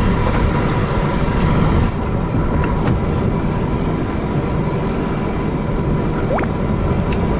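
Fishing boat's engine running steadily, its drone mixed with wind and water noise. Two short rising squeaks near the end.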